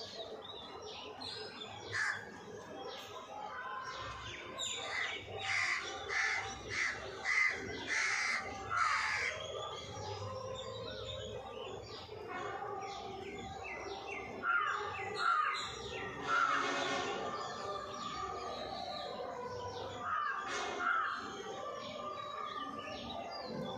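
Birds calling and chirping, with clusters of louder calls about five to nine seconds in, again around the middle, and near the end, and quieter calls between.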